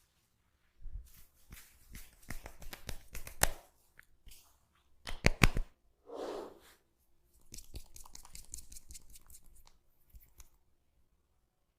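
Close-up crackling and clicking from a hands-on head massage, coming in several short runs, with a loud cluster of sharp clicks about five seconds in and a fast run of fine crackles near the end.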